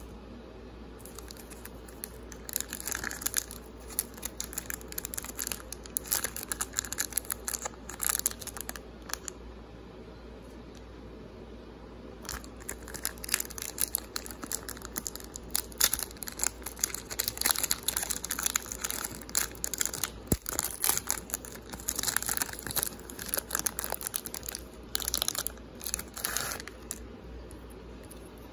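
Trading card pack wrapper crinkling and tearing as it is opened and the cards are pulled out. The crackling comes in bursts, with a lull of a couple of seconds about ten seconds in.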